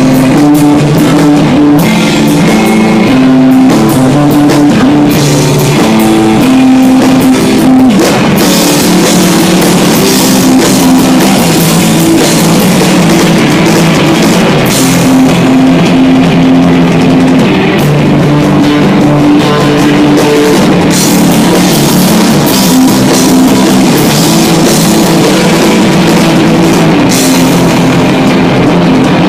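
Instrumental desert rock band playing live, loud: electric guitar with held, slowly changing notes over a steadily played drum kit.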